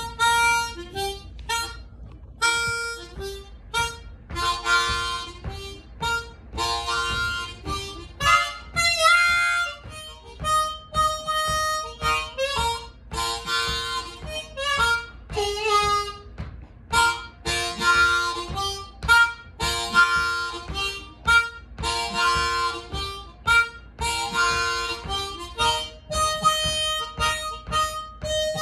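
Solo harmonica played in a blues style: short phrases of chords and single notes with brief gaps between them, with some notes bent in pitch about nine seconds in.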